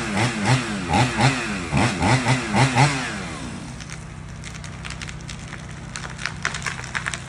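An engine revved hard in quick repeated surges, rising and falling about three times a second. About three seconds in it drops to a steady idle, and scattered sharp cracks come near the end.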